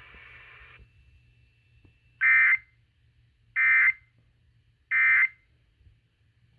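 Emergency Alert System end-of-message signal: three short bursts of SAME digital data tones, each about a third of a second long and a little over a second apart, marking the end of the alert broadcast.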